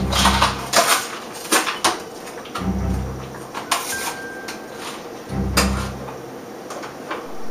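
Kitchen handling noises: a string of sharp clicks and knocks. A low hum swells and fades about every two and a half seconds, three times.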